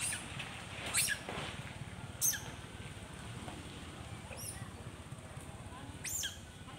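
Five short, high-pitched animal calls, each sweeping downward in pitch, spaced one to two seconds apart over a faint steady hiss. The second and third calls are the loudest.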